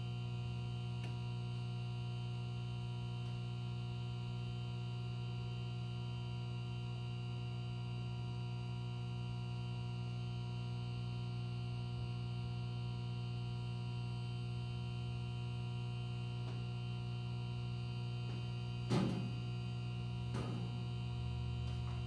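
A JR 103 series 1500 electric train standing at a station, its onboard electrical equipment humming steadily with several fixed tones. Two short knocks come near the end, the first the louder, about a second and a half apart.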